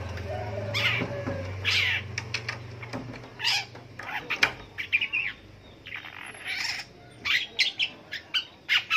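Long-tailed shrike (pentet) singing: a busy run of short chirps and harsh, scratchy notes, coming thicker and faster in the second half. A steady low hum lies underneath and fades out about four seconds in.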